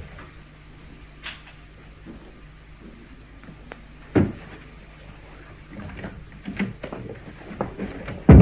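Books being handled and packed into a bag: scattered soft knocks and clicks, with one sharp thump about four seconds in and a louder thump at the very end.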